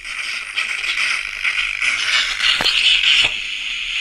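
Steady radio static hissing from the speaker of a Panasonic RX-FS60 radio-cassette recorder as its newly fitted volume control is turned up, with a couple of crackles: the set's audio output working again.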